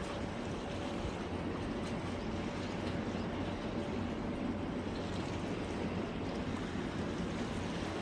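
Seawater washing and lapping against a harbour's concrete edge, a steady wash of noise with a low rumble underneath.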